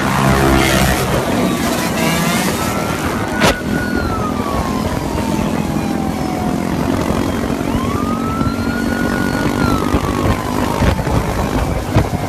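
A police car siren wailing, its pitch sliding slowly down, back up and down again over several seconds, over a motor vehicle engine running steadily. A single sharp knock comes about three and a half seconds in.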